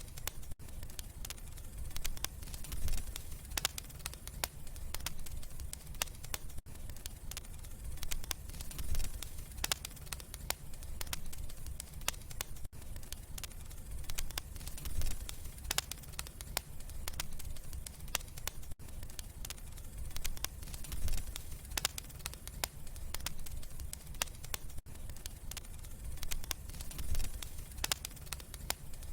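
Wood fire crackling in a fireplace: frequent sharp pops and snaps over a low, steady rumble of the flames.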